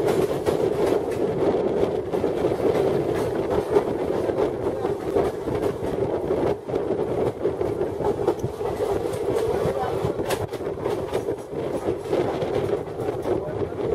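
Two Indian Railways passenger trains crossing at speed, heard at the open doorway of one coach: a steady rush of running noise with the clatter of steel wheels over rail joints.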